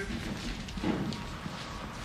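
Footsteps of people walking quickly across a floor, a few irregular steps over low room noise.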